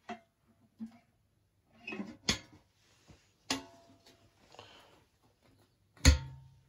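Metal canister of a WW2 Czechoslovak gas mask being handled: a string of separate metallic clicks and knocks, some with a short ring. About six seconds in it is set down on the rug with a heavy knock and a low ringing tail, the loudest sound.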